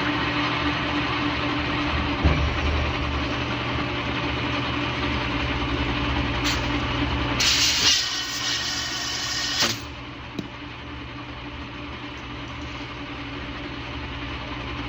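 Vintage Lehmann engine lathe running with a steady motor hum during a threading job on a steel tube. About seven seconds in there is a loud hiss lasting about two seconds, then the machine noise drops to a lower level.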